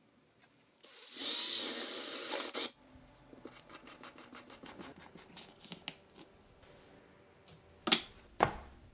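A power drill runs for about two seconds with a whine. Light uneven ticking follows, and then two sharp knocks near the end.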